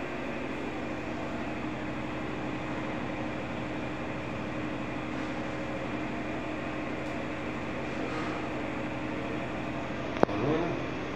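Steady machine hum made of several fixed tones, like air conditioning or a fan running. About ten seconds in there is one sharp click, followed by a brief wavering tone.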